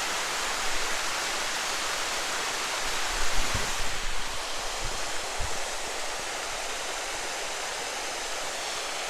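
Creek water rushing and splashing steadily below the mill dam, with a few brief low thumps a few seconds in.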